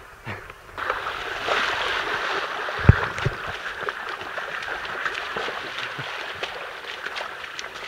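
Feet wading and sloshing through a shallow channel of muddy water: steady splashing with many small splats, starting suddenly about a second in, with one heavy thump about three seconds in.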